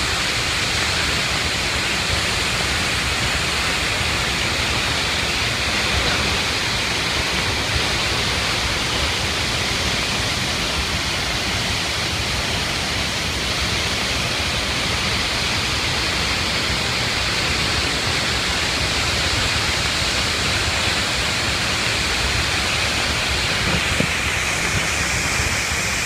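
A waterfall in full flood, close by: a loud, steady rush of heavy muddy water pouring over a rock face and crashing into spray.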